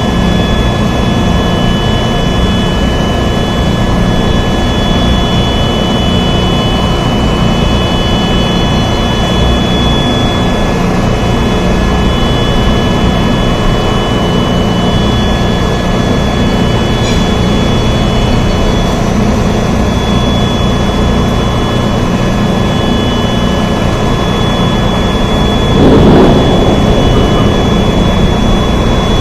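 Rain falling steadily, a dense even rush heaviest in the low end, with faint steady high-pitched tones above it; it swells louder for a moment about 26 seconds in.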